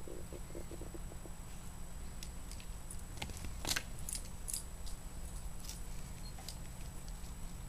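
Dogs playing and wrestling: scattered light clicks and clinks of collar tags and scuffling, with a short run of rough pulses near the start and a sharper click a little over halfway through, over a steady low hum.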